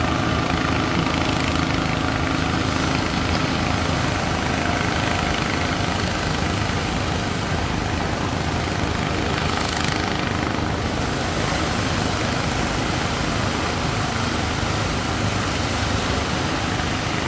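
Fishing boat engines droning steadily over a constant rush of surf and wind.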